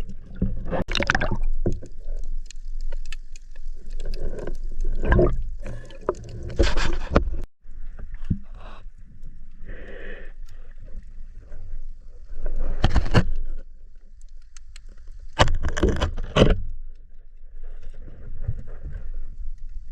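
Water sloshing and gurgling, with irregular louder splashes over a steady low rumble. The sound drops out briefly about seven and a half seconds in.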